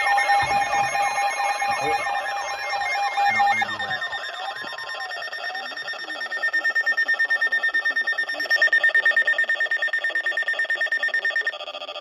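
Several weather alert radios sounding their alarms at once for a severe thunderstorm warning: overlapping steady tones and warbling sweeps, then a fast pulsing beep that comes in about six seconds in, gets louder, and stops shortly before the end.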